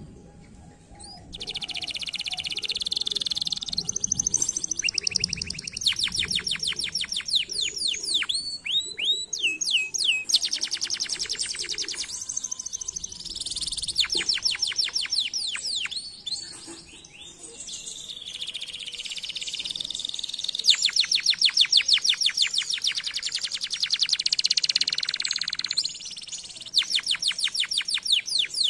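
Domestic canary singing: long, fast trills and rolling phrases of quickly repeated high notes, broken by short pauses.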